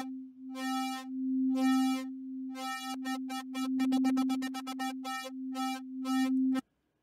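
Arturia Pigments software synth holding one steady note while an LFO sweeps its wavetable position, so bright pulses of overtones repeat over a pure tone. The pulses come about once a second, quicken to a fast flutter around the middle as the LFO's synced rate is turned up, then slow to about two a second, and the note stops near the end.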